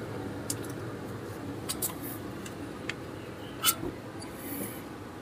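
Brake caliper being worked off the disc by hand: a few light metallic clicks and knocks, the loudest about two-thirds of the way through, over a steady low background hum.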